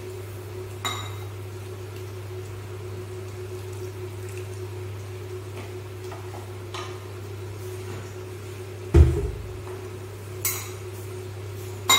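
Steel kitchen vessels and utensils clinking and knocking now and then around a pan on a gas stove, with one heavy thump about nine seconds in, over a steady low hum.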